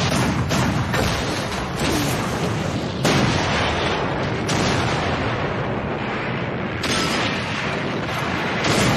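World War I-style artillery barrage: a run of cannon blasts at irregular spacing, some half a second apart and others two seconds apart, over a continuous low rumble.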